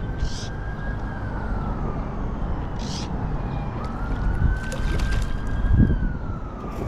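Distant emergency-vehicle siren wailing, its pitch slowly rising and falling twice, over a steady low rumble. A low thump is heard about six seconds in.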